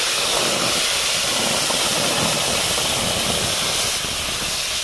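Wet spice paste of tomato, onion, dried chilli, garlic and ginger hitting hot mustard oil in a karahi: a loud, steady sizzling and spattering. It eases slightly about four seconds in as stirring begins.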